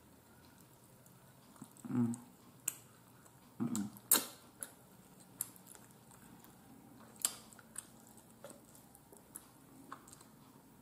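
Fork clicking and scraping on a plate as pieces of pork roast are picked apart to pull the meat off the fat, with several sharp clicks, the loudest about four seconds in. Soft chewing sounds near two and four seconds in.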